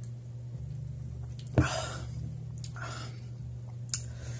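A man sipping beer from a glass, then a click and two breathy exhales after the sip, about a second apart. A steady low hum sits underneath.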